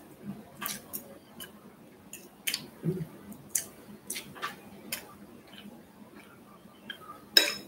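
Close-up eating sounds: chewing with scattered soft clicks. Near the end a metal fork starts clinking rapidly against a glass plate, several strikes.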